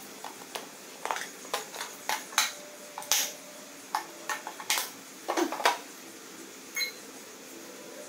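Small hard tools and parts being picked up and put down on a wooden floor: about a dozen irregular clicks and clinks, with one short ringing ping near the end.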